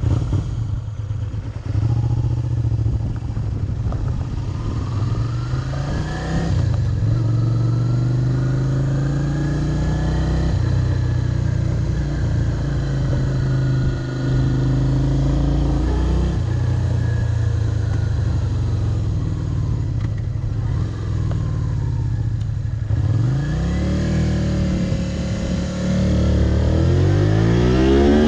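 Honda VTR250 V-twin motorcycle engine under way, its pitch climbing as it accelerates and dropping at each gear change, with stretches of steady running in between. Near the end the revs fall low and then climb steeply again.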